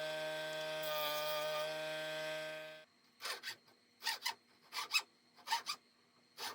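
Background music with held chords stops abruptly about three seconds in. Then a hand file scrapes back and forth across the wooden screwdriver handle being shaped, in short strokes that come in pairs about every 0.7 seconds.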